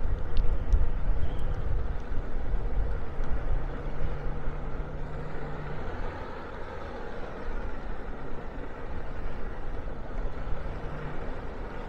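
Motor scooter riding along a town street: its small engine running steadily under a heavy rumble of wind and road noise on the microphone, a little louder in the first couple of seconds.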